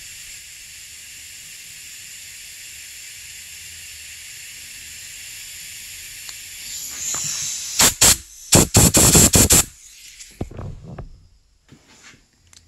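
A steady hiss that swells, then several short, loud blasts of compressed air from an air nozzle about eight to ten seconds in, blowing debris out of a threaded grease-fitting hole in a snowmobile spindle.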